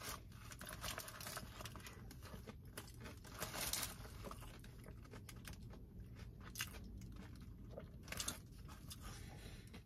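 Quiet chewing of a crispy chicken sandwich with fried onions, with small crunches and a couple of louder rustles or crunches, one about three and a half seconds in and one about eight seconds in.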